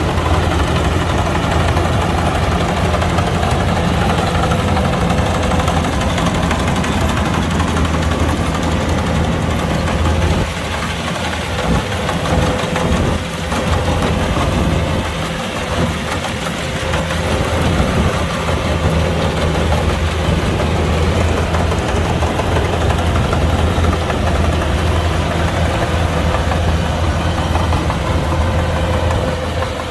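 Kubota combine harvester's diesel engine running steadily. The hum weakens and wavers for several seconds about ten seconds in, then steadies again.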